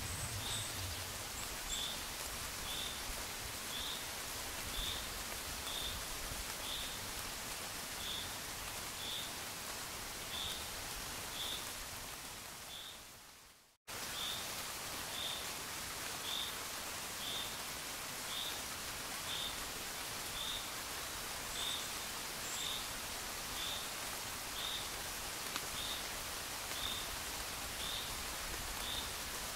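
Gentle rain falling steadily, with a faint high chirp repeating about once a second. Near the middle the sound fades out to silence and then cuts straight back in, like a recording looping.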